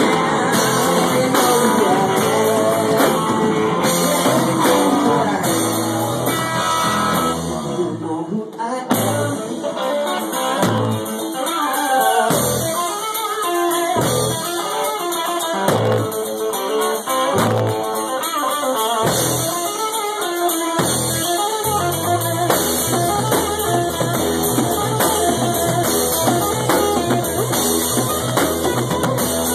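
Live rock band with electric guitar and drum kit. About eight seconds in the full band drops back to a sparse passage, with heavy low hits every second and a half or so under a guitar line, and the full band comes back in after about twenty seconds.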